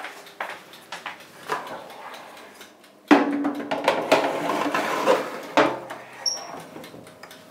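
A metal baking tray sliding into a countertop oven: light clicks and knocks, then a sudden scraping, ringing clatter of metal on the oven rack from about three seconds in, ending in a sharp knock near six seconds.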